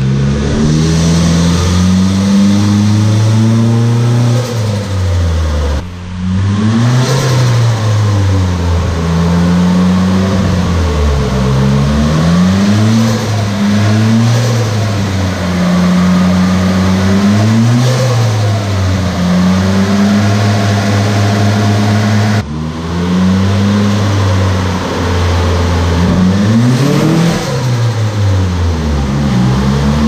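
Turbocharged KA24DET four-cylinder engine revving up and easing off again and again, each rise lasting a couple of seconds. The sound breaks off abruptly twice, about six seconds in and again past twenty seconds.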